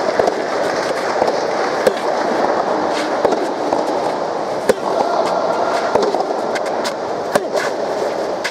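Soft tennis rally: sharp hits of the rubber soft tennis ball on rackets and court, coming irregularly about once a second, over a steady background of crowd noise.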